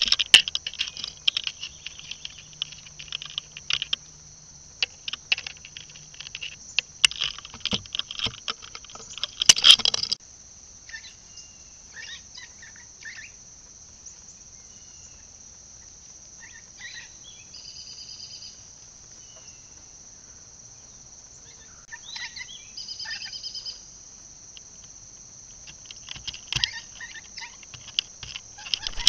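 Outdoor morning ambience: a steady high insect drone throughout, dense crackling and rustling clicks for the first ten seconds or so, then short bird chirps scattered through the rest.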